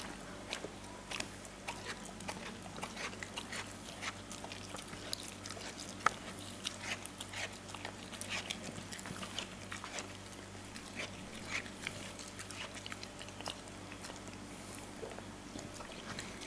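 Dog eating, picking up and chewing food crumbs: irregular small wet clicks and smacks of its mouth and tongue, with one sharper click about six seconds in.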